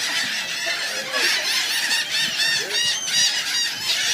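A flock of gulls calling, many short squawking calls overlapping one another.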